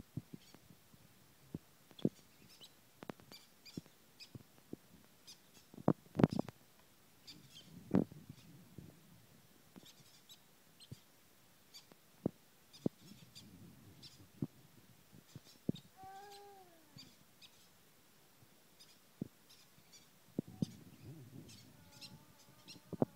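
Four-week-old green-cheeked conure chick making short, faint high chirps while being hand-fed, mixed with scattered clicks and a few louder knocks from handling on the towel.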